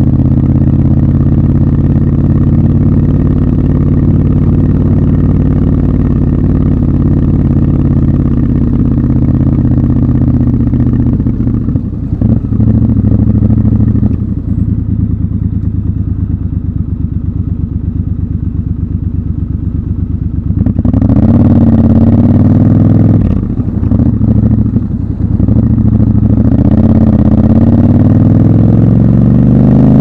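Triumph Scrambler 1200 XC's 1200 cc parallel-twin engine running at low steady revs, then accelerating through the gears in the last third: rising revs broken twice by short drops at the gear changes.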